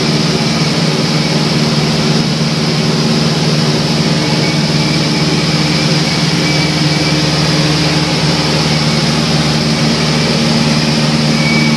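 A light high-wing airplane's engine, heard from inside the cabin in flight, running steadily with a constant low drone.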